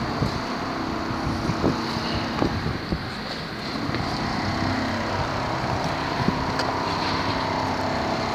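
Steady street noise from traffic, with wind on the microphone. About halfway through, a steady mechanical hum grows stronger: demolition strip-out work going on inside the building.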